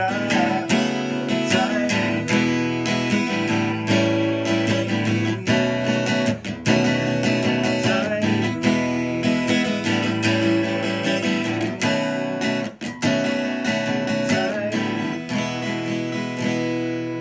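Steel-string acoustic guitar strummed in a steady rhythm, working through a chord progression with the chords changing every couple of seconds. The strumming eases near the end and a last chord rings out.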